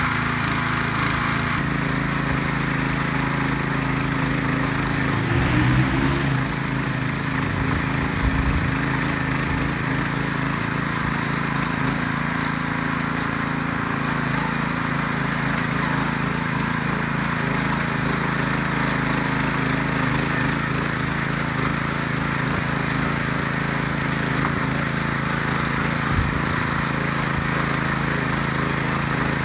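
Ruris DAC 7000 ACC2 petrol motor hoe running steadily under load, its rotary tines churning dry garden soil. About five seconds in, the engine pitch briefly rises.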